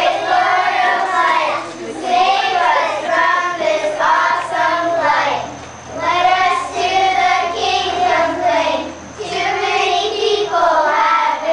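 A group of young children singing together in unison, in short phrases with brief breaks between them.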